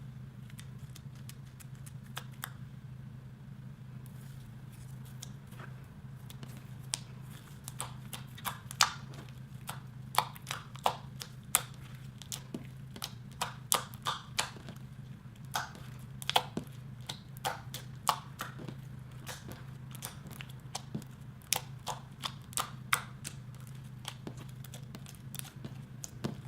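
Clear slime being worked by hand with gold leaf mixed in, giving irregular sharp clicks and pops, sparse at first and coming thick and fast through the middle, over a steady low hum.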